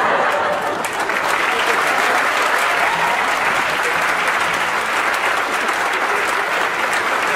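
Large seated audience applauding steadily, many hands clapping at once.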